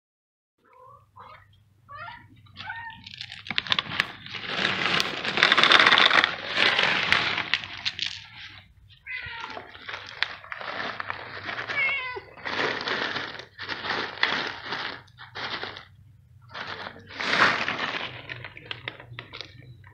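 Domestic cat meowing repeatedly, in short calls and longer drawn-out ones that rise and fall in pitch.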